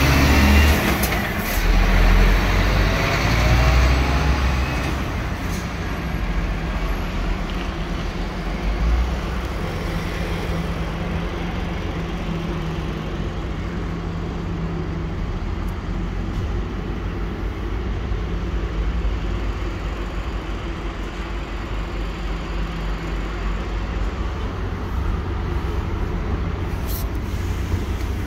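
Steady low rumble of a heavy diesel truck engine idling, with a faint hum riding above it. A few knocks and bumps from the cab door and handling come in the first few seconds.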